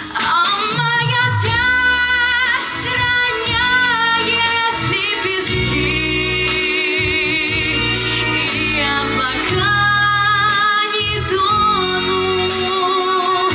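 Female solo voice singing long, wavering held notes over an instrumental backing track.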